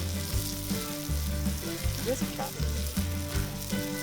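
Meat sizzling in a hot forged pan, a dense steady crackling hiss, with a background music bass line repeating underneath.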